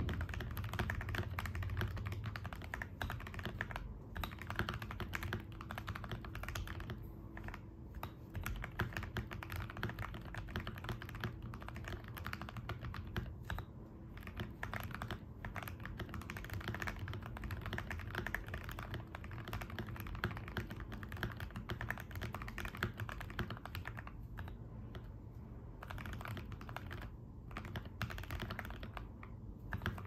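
Fast continuous typing on a Keydous NJ68 mechanical keyboard with foam-dampened case, lubed Kailh Box Red linear switches and Akko Chicago PBT double-shot keycaps, the keystrokes running together with short pauses now and then.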